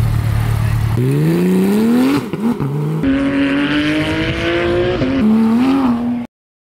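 Porsche 911 GT3 (991.2) naturally aspirated flat-six: a steady low engine note, then revs climbing as the car pulls away, then a higher, rising note under hard acceleration on track that drops suddenly about five seconds in. The sound cuts off abruptly just after six seconds.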